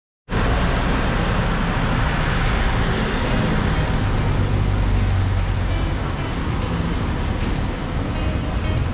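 Street traffic noise, with a city bus's engine running close by and loudest around the middle.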